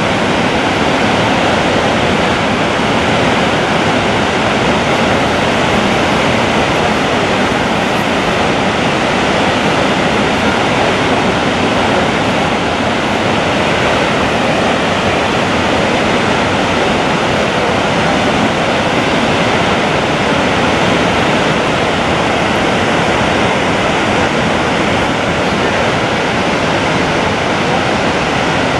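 Gullfoss, a broad waterfall in two stages, with a loud, steady rush of heavy falling water.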